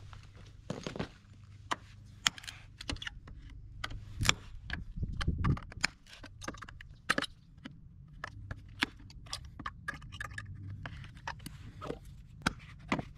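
Hammer and pry bar tapping and clinking on steel form pins and wooden footing forms: many sharp, irregular knocks and metallic clinks as the formwork is pried loose and the pins are popped out.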